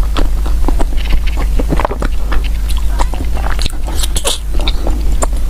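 A person chewing and biting food close to the microphone: many short, wet mouth clicks and smacks at an irregular pace, over a steady low hum.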